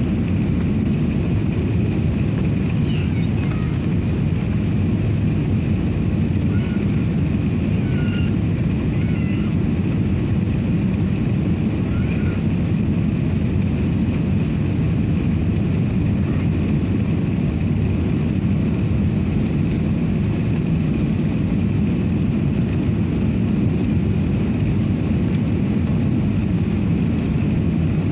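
Steady cabin noise inside an Airbus A380-800: an even low rumble of engines and rushing air with a faint high whine held at one pitch.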